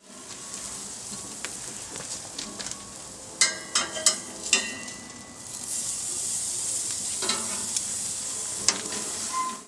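Steak sizzling on a hot grill grate. A few sharp clacks of metal tongs on the steak and grate come about three and a half to four and a half seconds in as the steak is turned; after that the sizzle is louder.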